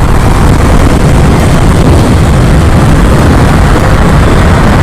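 Steady, loud rush of wind and road noise from a Suzuki Gixxer 250 motorcycle under way, with wind buffeting the rider's GoPro microphone.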